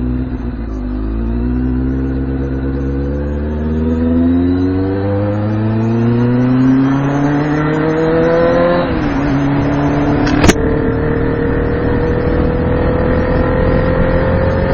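A 2006 Kawasaki ZX6R 636 inline-four engine accelerates hard, its pitch rising steadily through a gear. About nine seconds in the revs drop with an upshift, and it pulls on in the next gear (third), rising slowly. A single sharp click comes shortly after the shift.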